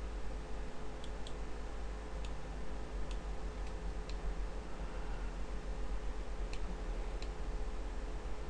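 About eight short, sharp computer mouse clicks at irregular intervals, over a steady low electrical hum.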